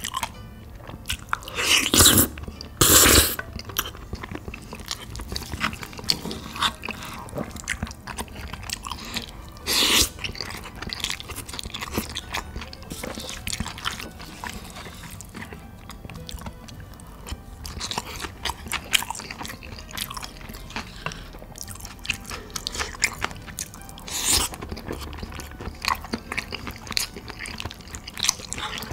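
A man eating close to the microphone: biting and chewing with wet mouth sounds and crunching. A few louder crunching bites come through, two close together a couple of seconds in and others around ten and twenty-four seconds in.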